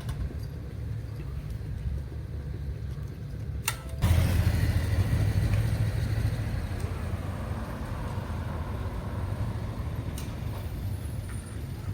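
Road traffic: a low steady rumble, then about four seconds in a motor vehicle passes close by, its noise rising sharply and fading slowly.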